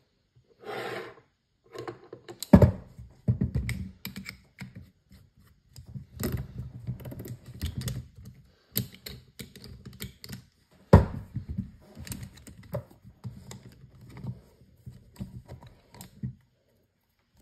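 Manual can opener driven by a Milwaukee cordless drill, clattering and clicking fast and unevenly as it cuts around the can's rim, with two loud knocks, one about two and a half seconds in and one near the middle. The clatter stops about a second before the end.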